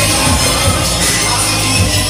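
Live concert music played loud over a club sound system, with a steady low beat.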